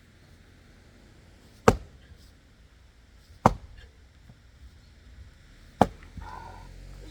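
Axe striking a firewood log three times, sharp chopping blows a couple of seconds apart, working pieces off the edge of a log that is hard to split.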